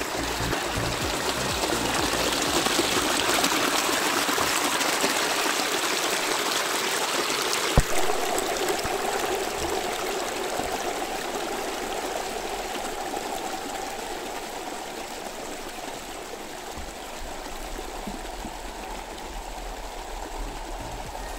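Creek water rushing over rocks and through an aluminium gold sluice box: a steady splashing rush. A single sharp click comes about eight seconds in, and the rush is softer after it.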